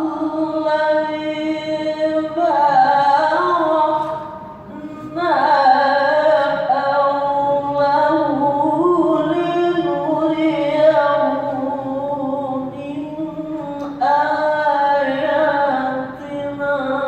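A solo voice chanting Quranic recitation (tilawah) in long, melodically ornamented phrases, each held note drawn out with pitch turns and short breaths between phrases.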